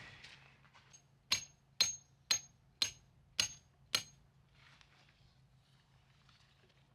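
Six hammer blows on metal, evenly spaced about half a second apart, each with a short high ring: a metal tent stake being driven in at a campsite.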